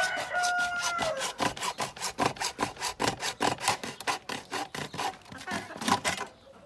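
Hacksaw cutting through the plastic wall of a produce crate in quick, even strokes, about four a second, stopping shortly before the end. Over the first second a rooster crows once, its call dropping as it ends.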